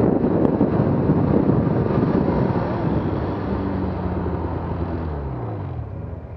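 Arctic Cat M8000 two-stroke snowmobile engine and track, with rushing wind noise, slowing down. The engine pitch falls steadily as the sled rolls to a stop and drops back toward idle near the end.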